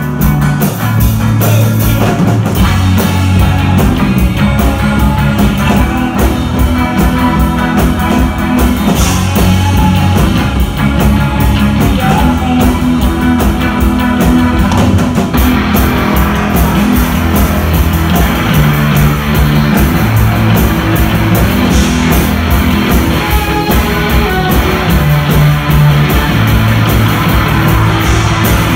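Rock band playing live and loud: electric guitar, bass guitar and drum kit, with a heavy, held bass line and busy cymbal strokes.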